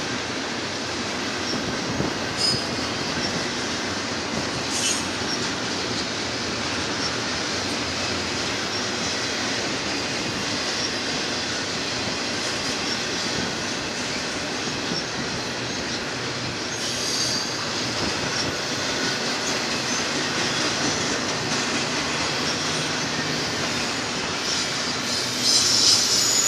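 Union Pacific double-stack container train's well cars rolling past with a steady rumble and clatter of wheels on rail. Brief high-pitched wheel squeals come a few times, and louder squealing starts near the end.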